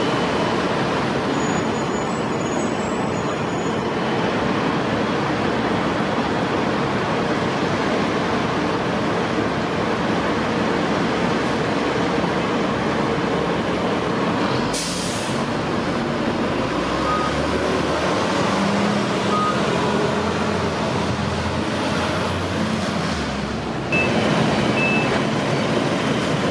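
Steady street traffic noise with fire trucks on the move. About halfway through comes a short, sharp air-brake hiss, followed by the low rumble of a fire engine's engine for several seconds.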